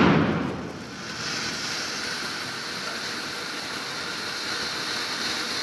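A firecracker's bang fades away in the first second, then a lit Diwali firework burns with a steady, even hiss as it throws out sparks.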